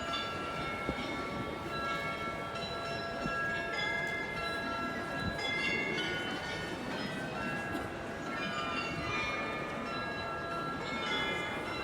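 The carillon bells of the Munich Rathaus-Glockenspiel ringing a tune, many bell notes struck one after another and ringing on so that they overlap.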